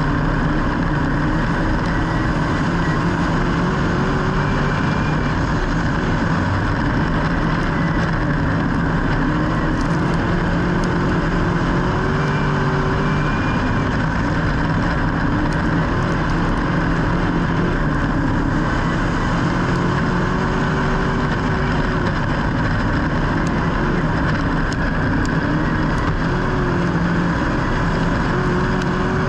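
Motor vehicle engine running steadily, its pitch drifting slightly up and down.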